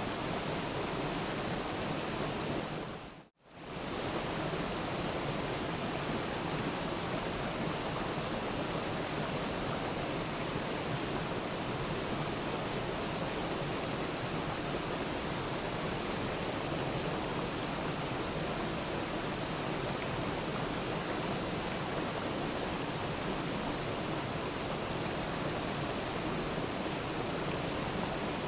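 Waterfall: a steady, even rush of falling water. It briefly fades out to silence and back about three seconds in.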